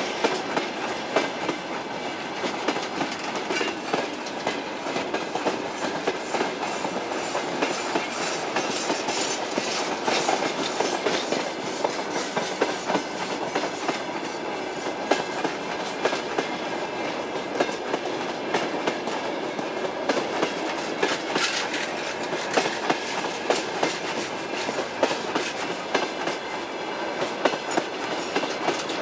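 Freight train of open gondola wagons rolling past close by: a steady rumble of wheels on rails, with many sharp clicks as the wheels cross rail joints.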